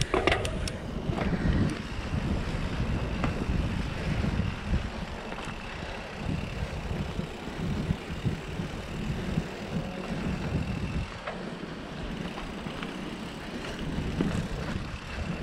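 Wind buffeting the microphone of a rider moving along a trail: an uneven, low rumbling rush that rises and falls, with a faint high thin tone behind it.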